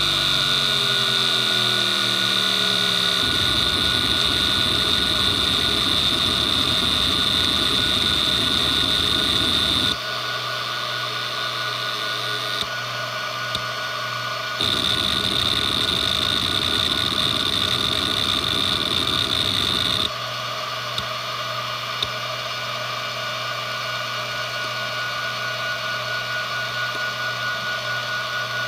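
Western Digital Expert 313600 7200 rpm hard drive working under a disk benchmark, with a steady high spindle whine throughout. Two stretches of rapid, buzzing head-seek chatter, each five to seven seconds long, come a few seconds in and again in the middle. Between and after them the drive runs more quietly.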